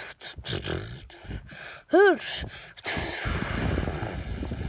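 A person's mouth noises: quick clicks and pops, a short loud squeal about two seconds in that rises and falls in pitch, then a steady hiss lasting about three seconds.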